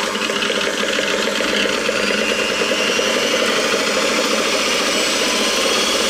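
Electric mixer running with a steady motor whine, its beaters whipping a cooled sugar, water and gelatine syrup into marshmallow.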